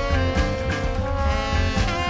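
Jazz band playing, with a saxophone and trombone horn line holding a long note over drums and bass.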